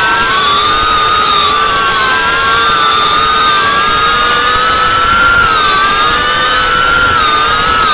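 Cinelog 35 FPV drone's brushless motors and ducted propellers whining steadily, several close pitches wavering slightly up and down together with the throttle.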